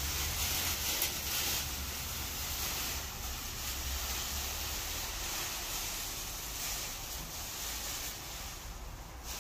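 Thin plastic masking sheet rustling and crinkling as it is pulled off a car's windscreen and bunched up. The rustle stops abruptly at the end. Wind rumbles on the microphone underneath.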